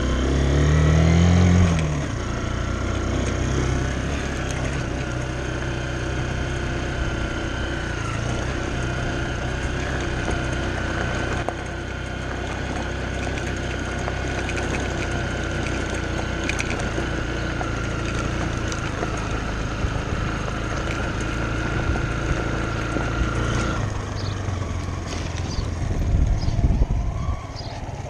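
Dirt bike engine revving up as the bike pulls away, then running at a steady speed. About four seconds before the end the engine note falls away as the bike slows, with a few loud knocks.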